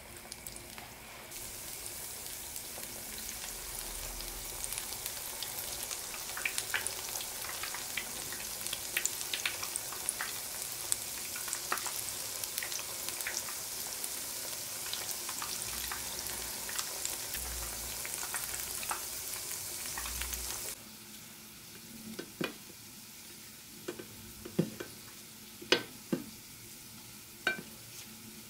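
Cottage cheese balls deep-frying in hot oil in a cast-iron skillet: a steady sizzle thick with small pops and crackles. The sizzle cuts off suddenly about 21 seconds in, and a few sharp clicks and light knocks of the fried balls being handled follow.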